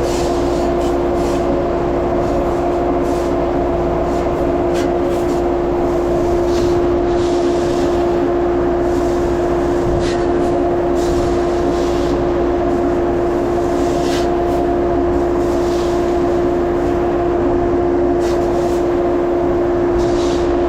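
Large farm machinery running steadily under load: a constant engine drone with a strong, even hum, and light rattling crackles coming and going over it.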